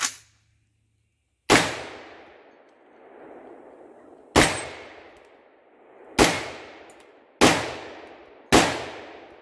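Stag Arms AR-15 rifle in 5.56/.223 fired five times at a steady, unhurried pace. The first shot comes about a second and a half in, the rest follow over the next few seconds, and each crack trails off in a long echo through the woods. A short, sharp crack comes at the very start.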